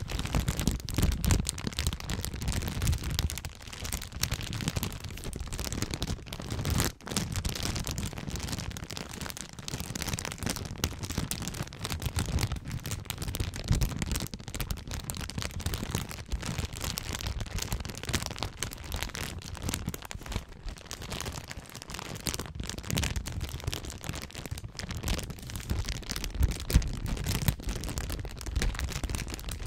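Clear plastic bag crumpled and crinkled by hand right against a microphone: a dense, continuous crackling with low rumbling bumps from the handling. It breaks off briefly about seven seconds in.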